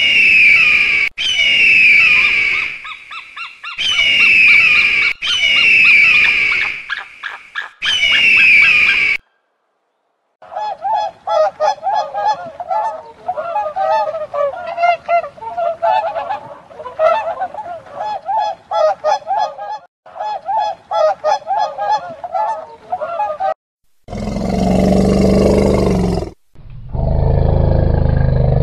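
A white-tailed eagle's high calls, repeated several times in a row. After a short break comes about thirteen seconds of rapid, overlapping honking calls from a flock of birds, then two loud calls from an elephant near the end.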